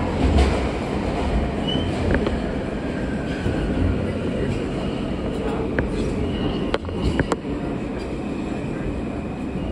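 Inside an R160 subway car running along the track: a steady rumble of wheels and running gear, with faint high wheel squeal and a few sharp clicks from the rails about six to seven seconds in.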